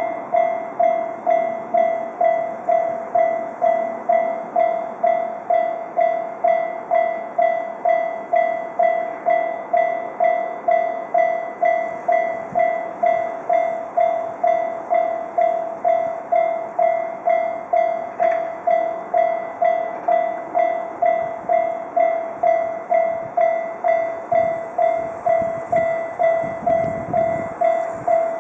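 Japanese railway level-crossing alarm: an electronic bell striking one mid-pitched tone over and over at an even pace of nearly two strokes a second, each stroke ringing and fading.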